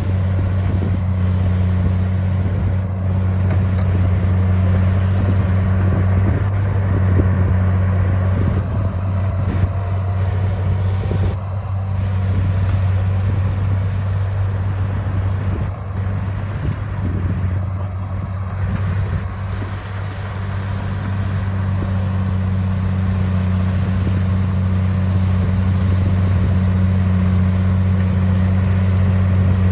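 Komatsu bulldozer's diesel engine running with a steady deep hum, easing off a little for several seconds midway before picking up again.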